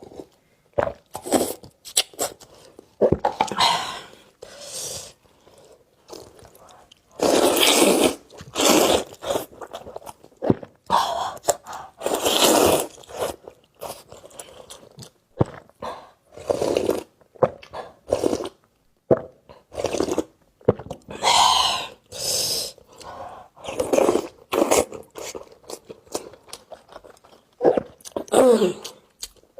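Close-miked eating of noodles in spicy sauce: irregular bursts of chewing and wet mouth noises, some short and some lasting over a second.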